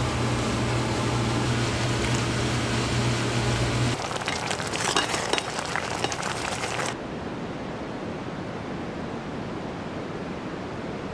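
A steady machine hum with a low tone for about four seconds. Then a spatula stirring rice cakes in thick red sauce in a steel pot, with scraping and clicking for about three seconds. After that, quieter steady background noise.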